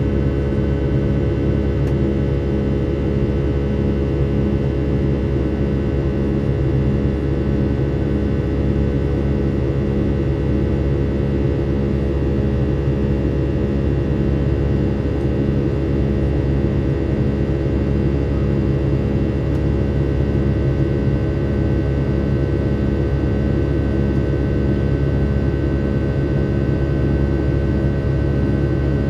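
Boeing 757-300's Pratt & Whitney PW2000-series turbofan heard from a cabin seat beside it during the climb after takeoff: a loud, steady engine buzz over a low drone, with a slow regular beat pulsing through it.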